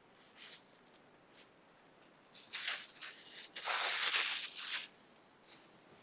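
Rustling and swishing of a soft chanderi saree as it is unfolded, lifted and shaken out. A few short rustles come first, and the longest, loudest rustling comes about three and a half to five seconds in.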